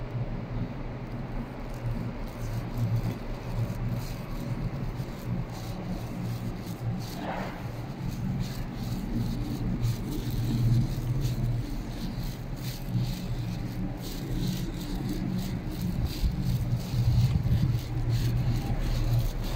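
A steady low hum fills an underground bus hall, with light clicks and scuffs of someone walking through it. A brief higher-pitched sound comes about seven seconds in.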